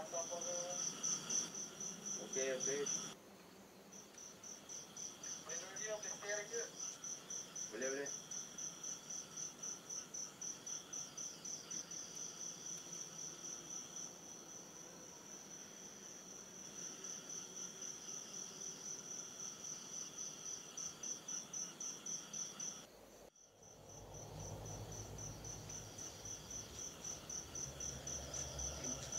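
Cricket chirping steadily in an even, rapid pulse, a few pulses a second. A few faint, brief voice-like murmurs come in during the first eight seconds.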